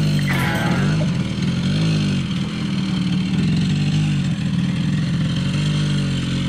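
Yamaha three-wheeler's single-cylinder engine running at low speed under light throttle, the revs rising briefly about two seconds in and again near the end.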